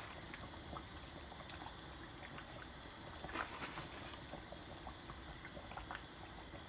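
Curry simmering in a pot on a gas hob: faint, steady bubbling with small scattered pops, one a little louder about three and a half seconds in.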